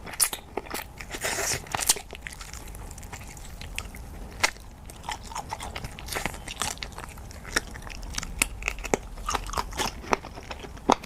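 Close-up eating of a spicy marinated chicken-feet snack: a run of short crunchy bites and wet chewing clicks, with a denser crackly patch in the first couple of seconds.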